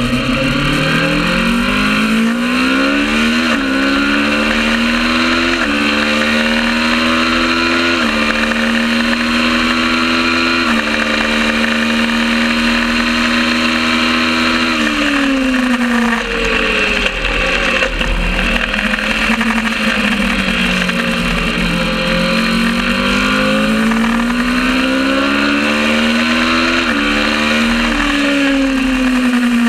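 Kawasaki ER650 supertwin race bike's parallel-twin engine under hard acceleration, its pitch climbing and dropping back in quick steps as it is shifted up through the gears, then held steady at high revs for several seconds. About halfway through, the revs fall away as it slows and is shifted down, then climb again through more upshifts near the end.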